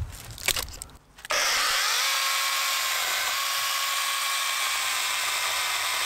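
Hychika battery-powered mini chainsaw starting about a second in, its electric motor spinning up with a short rising whine, then running steadily as the chain cuts into the base of a green wood stump.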